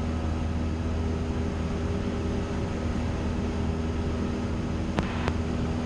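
Steady drone of a Cessna 172's engine and propeller in cruise flight, a low even hum with faint steady tones over it. Two faint clicks come about five seconds in.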